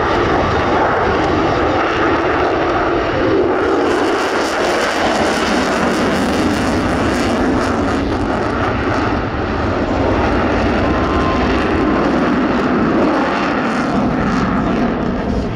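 F-22 Raptor's twin turbofan engines running loud and steady through a display pass, the hiss brightening and then easing between about four and nine seconds in.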